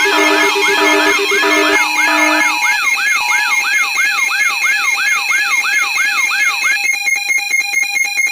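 Layered electronic alarm tones: a whooping sweep repeating about three times a second over steady and pulsing beeps, turning near the end into a fast pulsing buzz that cuts off abruptly.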